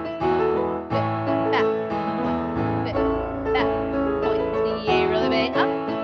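Live piano accompaniment playing a polonaise for grand battements at the barre, with chords struck in a steady triple-time rhythm, heard through a video call.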